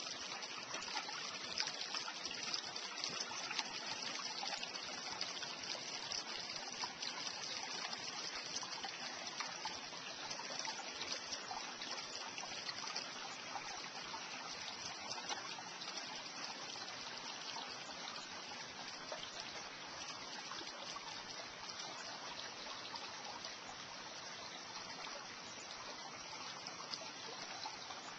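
Shallow creek water trickling and splashing over rocks and pebbles, a steady rush that is a little louder in the first ten seconds or so, then eases slightly.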